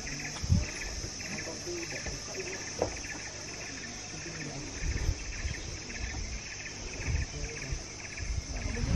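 Forest insects calling: a steady high whine under a pulsed, trilling chirp that repeats about twice a second, with occasional low thumps.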